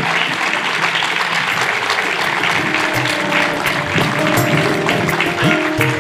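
An audience applauding, with music coming in about halfway through and playing alongside the clapping.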